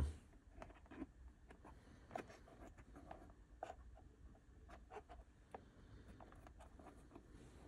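Faint, irregular small clicks and rubbing as fingers pick through rubber O-rings in a plastic O-ring assortment case. The clicks thin out after about six seconds.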